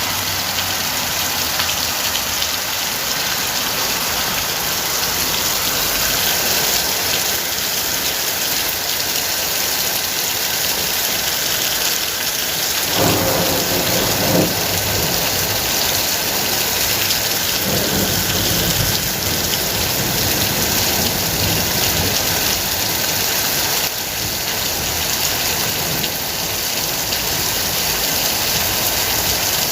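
Steady heavy rain, with thunder rumbling twice around the middle.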